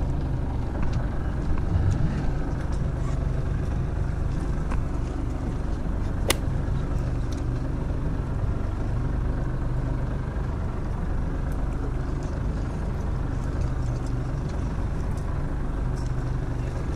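Fishing boat's engine running steadily, a low even hum under a steady rush of noise, with one sharp click about six seconds in.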